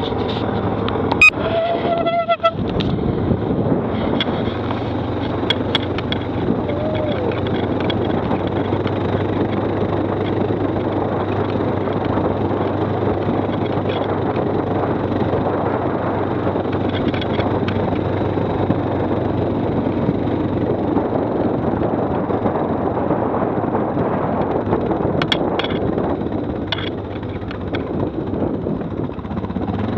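Stels ATV 800D quad bike on the move, its engine running steadily under continuous ride noise. A short sharp sound with a brief tone comes about a second in, and a few clicks follow later.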